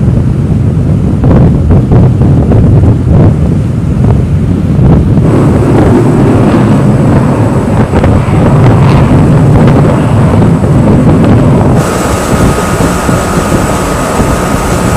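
Wind buffeting the microphone, a loud, steady low rumble with a hiss above it. The sound changes at cuts about five and twelve seconds in, and a faint steady whine joins it near the end.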